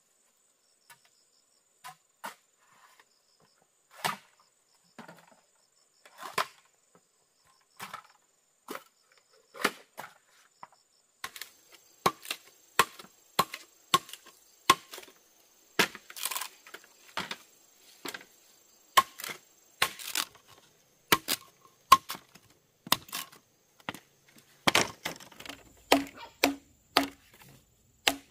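Repeated hand-tool strikes on wood. A few scattered blows a second or two apart give way to a steady run of about two a second, and the last strikes carry a short low ringing note. A faint steady insect chirring runs underneath.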